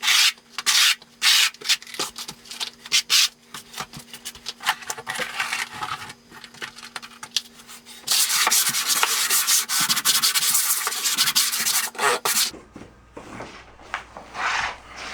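Wooden float rubbing over a Schluter Ditra Heat membrane to press it into the thinset, first in separate back-and-forth strokes, then a few seconds of continuous rubbing. Near the end the rubbing stops and quieter handling sounds follow.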